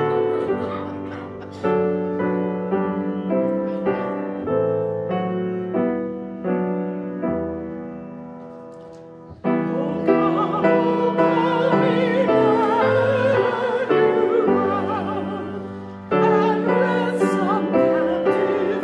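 Piano playing slow, sustained chords; about halfway in, a solo melody with wide vibrato enters over the piano, louder than the piano alone.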